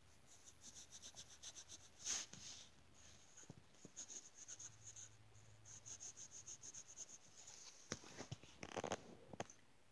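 Pencil scratching on paper in quick back-and-forth shading strokes, faint and in several short runs. There is a stronger stroke about two seconds in and a few sharper taps near the end.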